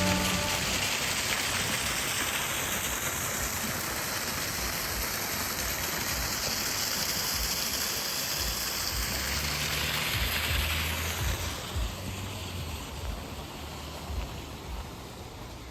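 Steady rush of flowing stream water, growing quieter after about eleven seconds.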